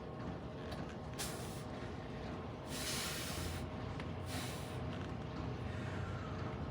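Three short hissing breaths, forceful exhales, the middle one the longest and loudest, over a steady low room hum.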